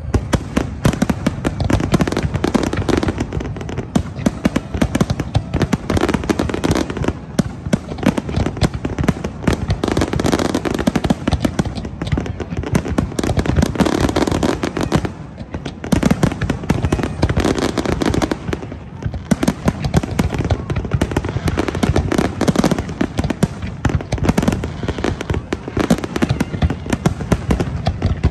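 Large aerial fireworks display: shells bursting in dense, rapid succession, many bangs a second with hardly a gap, easing only briefly about fifteen seconds in.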